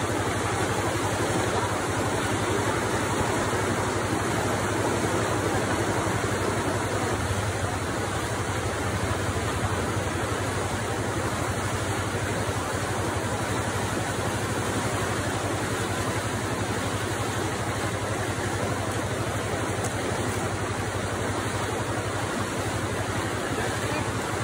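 Fast-flowing muddy floodwater rushing across a road crossing: a steady, even rush of water with no breaks.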